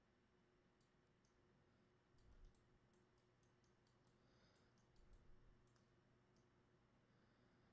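Near silence with faint, scattered clicks of a computer mouse, bunched together with a soft low thump about two and a half seconds in and again about five seconds in.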